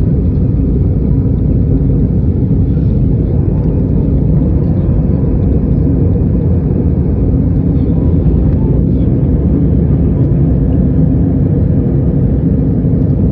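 Cabin noise of an Airbus A320 climbing out just after takeoff: the jet engines and airflow give a loud, steady low rumble, heard from inside the cabin.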